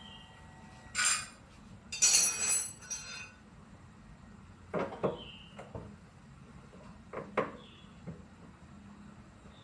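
Metal tools and parts clinking and knocking as they are handled during the dismantling of a front-loading washing machine: a burst of clatter about one to three seconds in, then a few single knocks.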